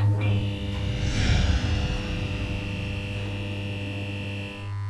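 Intro logo sound effect: a steady low electric hum-like drone with a sustained high tone over it and a brief shimmering swell about a second in. The high tone stops near the end while the low drone carries on.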